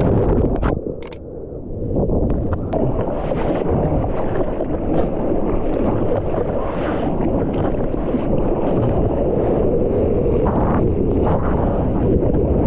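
Sea water sloshing and rushing around a GoPro action camera held at the surface in surf, with wind buffeting the microphone. A few sharp clicks come in the first seconds.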